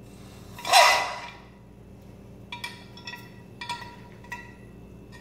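A hot sterling silver piece is quenched in water, giving one short hiss about a second in. Then come several light clinks with a glassy ring as the metal tongs knock against the glass quench dish.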